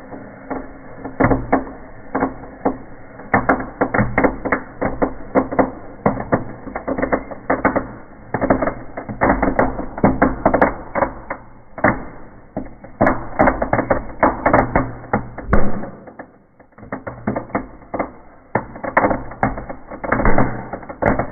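Indoor fireplace firework crackling in the fire: a dense, irregular run of sharp pops and crackles, several a second, with a short lull near the middle of the run.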